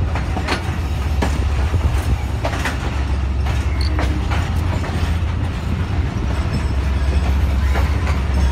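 Local passenger train rolling slowly along a station platform, heard from an open door of a carriage: a steady low rumble with scattered clicks and knocks of the wheels over the rail joints.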